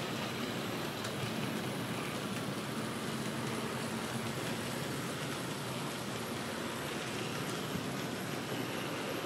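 N scale model train rolling past on its track: a steady rumble of small metal wheels on the rails, with a faint motor hum that fades out about halfway through.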